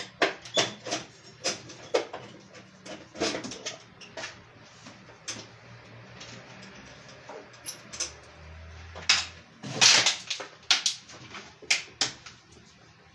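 Hands and tools working at an old electricity meter to take it out of its panel: irregular clicks, knocks and clatter of plastic casing, screws and tools. The loudest cluster of knocks comes about ten seconds in.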